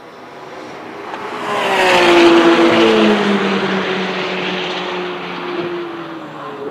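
Two race cars passing at speed on the track. The engine note swells to a peak about two seconds in, then drops in pitch and fades as they pull away.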